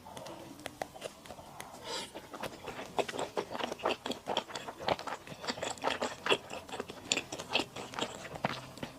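Close-miked eating sounds: mouth chewing on malatang with thick rice noodles, a rapid run of short wet clicks and smacks that grows busier after the first few seconds.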